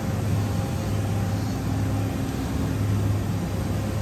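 Steady low machinery hum of a machine shop, with a few faint steady tones above it; the low hum briefly drops out a couple of times.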